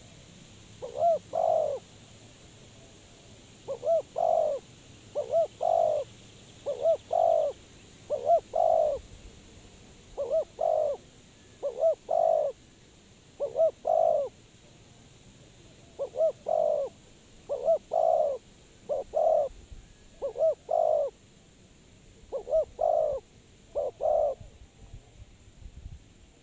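Spotted dove cooing: a series of soft, low, two-part coos repeated about every one to two seconds.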